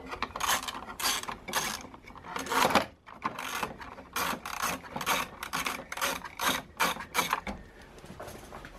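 Ratcheting spanner clicking in repeated strokes, about two a second, as it turns a nut on a BMW R1200GS Adventure's windscreen stabilizer bracket. There is a brief pause about three seconds in, and the strokes stop shortly before the end.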